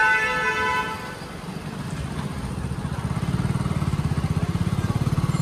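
A vehicle horn held on a steady chord, cutting off about a second in, then a motorbike engine running underneath with a fast low pulse, growing louder over the last few seconds.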